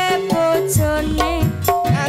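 Live Javanese band music with a singer: a sung melody on held, wavering notes over bass and hand drums.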